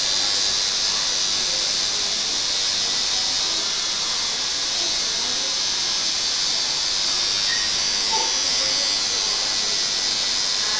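Tattoo machine buzzing steadily as its needle works into the skin, a constant high buzz with no breaks.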